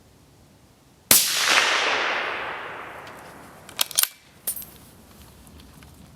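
A suppressed 6.5x55 Carl Gustaf bolt-action rifle fires one shot about a second in, its report trailing off in a long echo. A few sharp metallic clicks follow around four seconds in as the bolt is worked.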